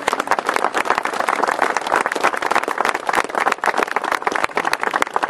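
Crowd applauding, many hands clapping steadily.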